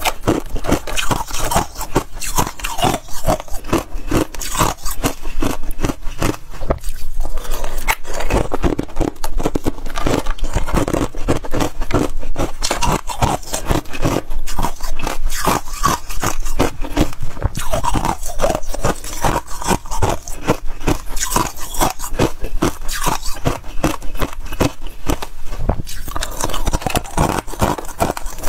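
Freezer frost crunching and scraping close to the microphone: a dense, continuous run of crisp crackles and scrapes.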